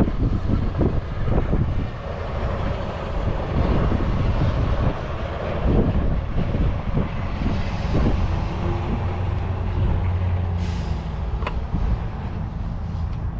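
Wind buffeting the microphone over the low rumble of vehicle engines, with a short hiss about ten seconds in.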